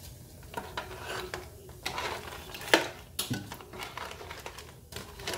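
A metal spoon stirring crab curry in a pot, clinking and scraping against the pot in irregular knocks. The sharpest knock comes a little under three seconds in.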